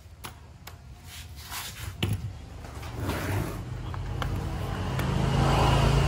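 A few sharp knocks as the rotary hammers are handled and set down on the concrete floor. Then a motor vehicle's engine swells louder toward the end, a low steady hum.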